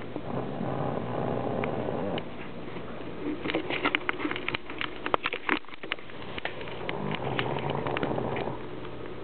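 A pug with almost no snout snoring in her sleep: two long snores about six seconds apart, with a run of short clicks and snuffles between them.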